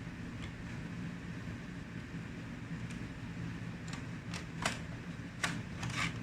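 Small sharp clicks and taps of plastic and metal laptop parts being handled and fastened during reassembly, a few faint ones at first and a quicker run from about four seconds in, over a steady low background hum.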